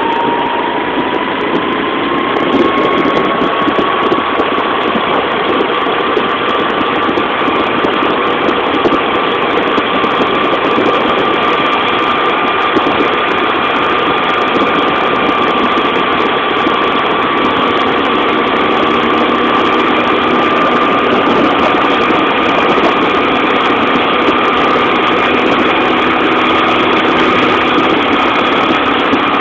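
Engine of a road vehicle under way at cruising speed, over a steady rush of road noise. Its whine rises over about the first two seconds as it speeds up, then holds steady.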